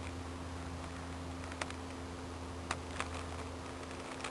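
A plastic sandwich bag being handled: three faint sharp clicks about a second apart over a steady low hum, which stops near the end.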